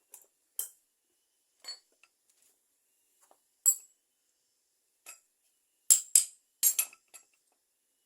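Small metal parts clinking and knocking as they are handled: a few scattered sharp clinks, then a quick cluster of louder ones about six seconds in.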